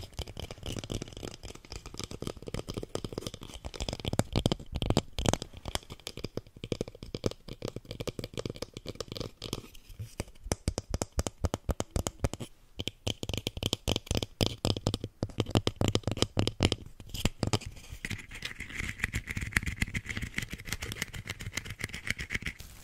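Fast fingertip tapping on a small plant pot close to the microphone: many quick taps in runs, with brief pauses.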